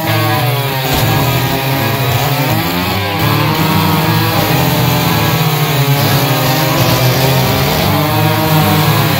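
Gas chainsaw running under load while cutting through log rounds, its pitch rising and falling as it revs and bogs in the wood.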